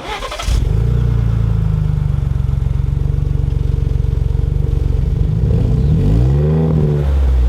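2021+ Ford Bronco engine through a Magnaflow Overland Series cat-back exhaust, starting up and settling into a steady idle. About six seconds in it gives one quick rev that rises and falls back to idle.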